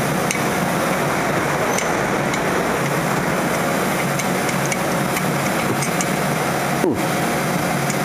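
Steady mechanical hum with a constant noisy hiss, with a few faint light clicks.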